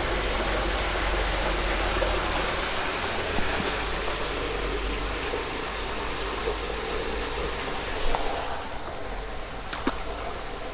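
Steady outdoor background noise: an even rushing hiss over a low rumble, with a constant thin high tone throughout and a few faint clicks near the end.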